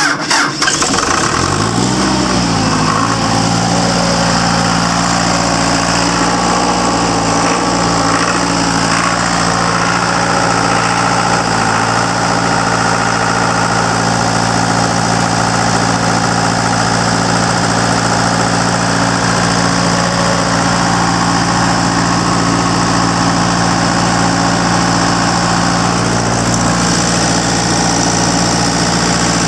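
John Deere 4045DF150 four-cylinder 4.5-litre diesel genset engine, just started and running: its speed wavers for a moment in the first few seconds, then settles into a steady run.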